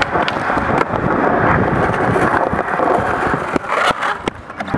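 Skateboard wheels rolling over paving in a steady close rumble, broken by a few sharp clacks of the board.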